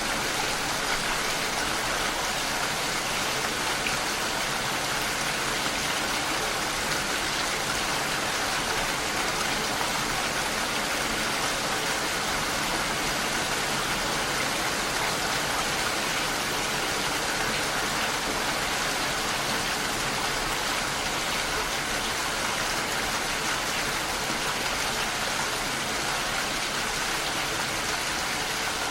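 Steady, even rainfall, a constant hiss of drops with no thunder and no change in strength.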